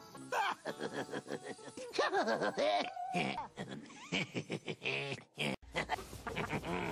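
Cartoon soundtrack: music under the characters' wordless vocalizing, with gliding, chuckling voice sounds and one briefly held note a little past halfway. The sound changes abruptly near the end as the scene switches.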